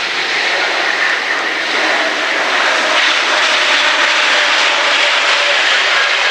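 Airbus A321neo's twin turbofan engines with a steady, loud jet rush during the landing rollout just after touchdown, growing a little louder about two and a half seconds in.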